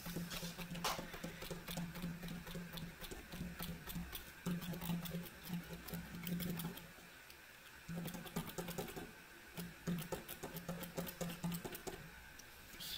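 Silver Uni-Paint PX-20 valve-action paint marker being primed: its tip is pressed down again and again against paper, giving a fast, uneven run of small clicks while the paint is brought to the tip. A low hum comes and goes underneath.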